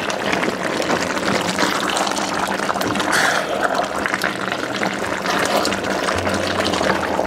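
Chicken and onion curry bubbling in a stainless steel pot, its sauce thin with the water the chicken has released, while it is stirred with a silicone spatula: steady wet sloshing and crackling.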